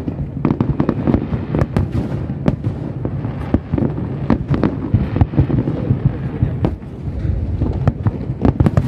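Aerial firework shells bursting in quick succession: a dense run of sharp bangs, several a second, over a continuous low rumble of overlapping explosions.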